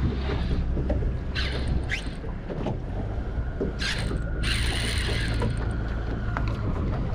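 Boat sounds: a low, steady motor hum with water washing against the hull, and two short splashy rushes about a second and a half and four seconds in.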